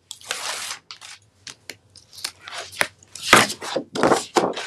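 Paper release backing being peeled off strips of double-sided tape, a series of short irregular rasps and crackles with the paper rustling, the loudest about three seconds in.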